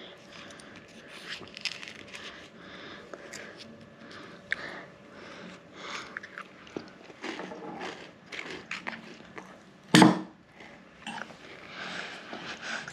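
Small plastic Kinder Joy capsule and toy parts being handled and worked at: scattered light clicks and crinkly rustles, with one loud sharp snap about ten seconds in.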